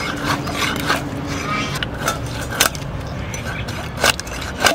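A large muchal catfish being scraped and cut against an upright bonti blade: a few sharp scraping strokes, spread about a second apart.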